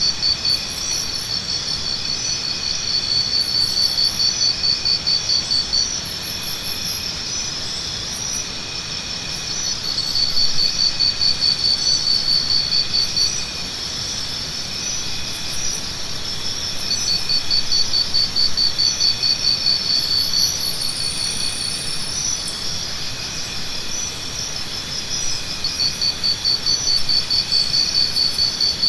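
Jungle ambience dominated by a dense, steady pulsing trill of insects such as crickets, swelling in long phrases and easing off between them, with a few short high chirps over a low hiss.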